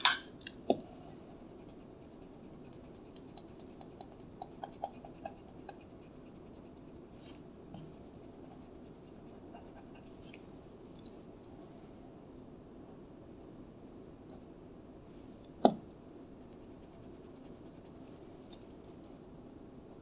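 Mechanical pencil lead scratching on paper in quick, short strokes, in two runs, with a few sharp taps and clicks in between; the loudest tap comes about three-quarters of the way through.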